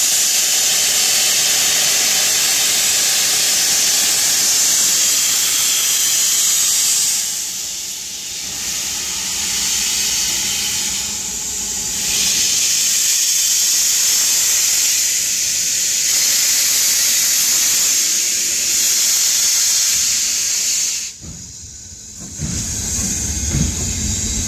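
Steam locomotive pulling away with its cylinder drain cocks open: a loud, steady hiss of steam that eases briefly about eight seconds in and again near twenty-one seconds. Near the end a low rumble of goods wagons rolling past comes in.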